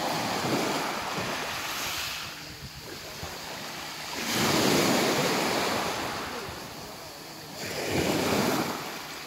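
Small waves breaking and washing up a beach of sand and fine pebbles, the rush swelling and fading, loudest about halfway through and again near the end.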